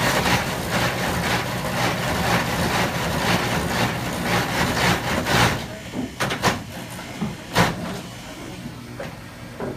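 Clog-making copying machine cutting a wooden shoe blank: a dense rasping of cutters biting into wet wood over a steady motor hum. The cutting eases about five and a half seconds in, leaving the motor running with a few sharp knocks.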